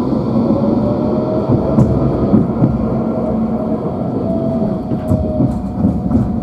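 Nottingham Express Transit tram running along the line: a steady rumble of wheels on rails with a thin whine above it.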